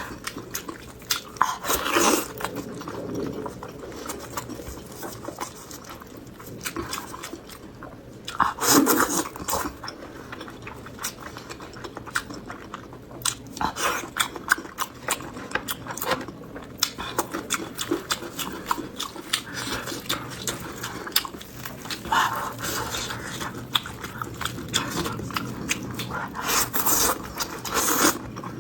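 A person chewing and biting food close to the microphone: many short wet clicks, with a few louder bites every several seconds.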